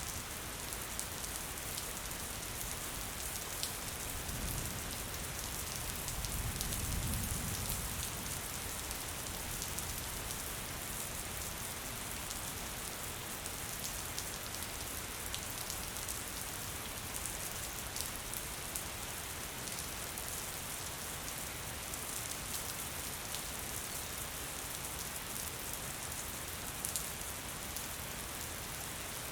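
Steady gentle rain falling, an even hiss with small drop ticks and pats. A low rumble swells and fades between about four and eight seconds in.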